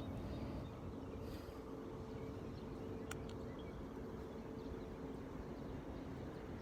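Faint outdoor background: a low rumble with a steady hum running under it, and a single light click about three seconds in.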